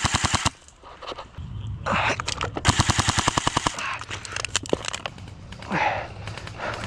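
Airsoft guns firing on full auto: a burst of rapid shots stops about half a second in, and a second burst comes around the middle, with scattered single shots in between.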